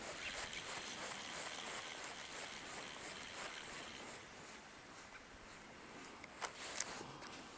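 Quiet outdoor ambience over still water: a faint, even hiss, with two small sharp clicks about six and a half seconds in.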